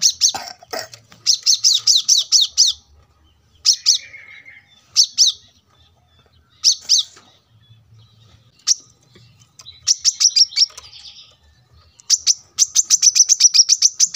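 Male brown-throated sunbird singing: short phrases of quick, high, falling chirps with pauses between them, breaking into a fast, even trill of repeated notes near the end.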